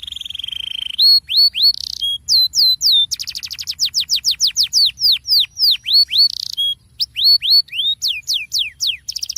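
Domestic canary singing a rolling song: fast buzzy trills alternating with runs of sharp downward-sweeping whistled notes, switching phrase about every second. This is the kind of canary song played as 'pancingan' to prompt other canaries to sing.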